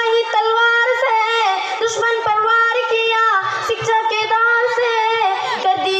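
A girl singing solo into a stage microphone, holding long notes that waver and slide from one pitch to the next without a break.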